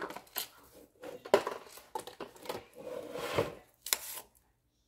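Handling noise from a reptile calcium supplement container and other items being picked up and set down: several sharp knocks, the loudest about a second and a half in, with rubbing and scraping between them. It stops shortly before the end.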